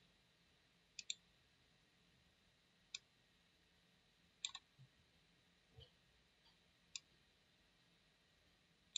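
Computer mouse button clicks: a double click about a second in, single clicks near three and seven seconds, and another quick double around four and a half seconds, with near silence between.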